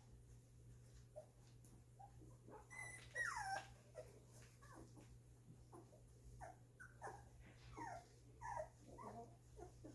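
Two-week-old golden retriever puppies whimpering and squeaking: a string of short, high, falling cries, the loudest about three seconds in, over a steady low hum.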